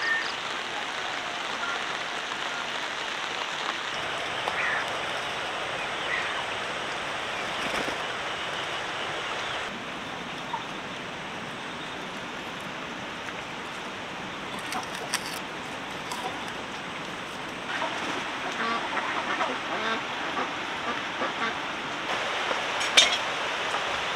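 Steady hiss of rain, with poultry calling now and then, more often in the last few seconds.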